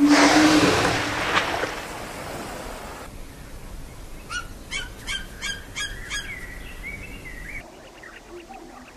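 A bald eagle's high piping call: a quick run of about six sharp notes, then a longer whistled note that dips and levels off. Before it, a loud rush of sea water with a low held tone from a surfacing whale fades over the first two seconds, and short low repeated calls start near the end.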